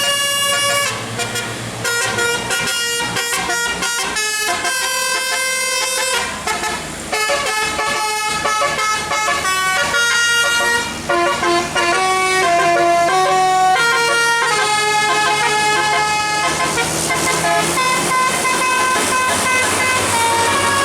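Bus 'telolet' musical multi-tone air horn playing a melody of short held notes, stepping from pitch to pitch several times a second.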